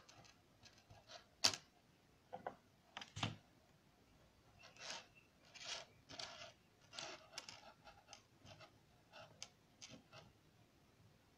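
Small electronic components and wire leads being handled and moved on a wooden tabletop: irregular light taps, clicks and short scrapes. The sharpest click comes about a second and a half in, and a duller knock follows near three seconds.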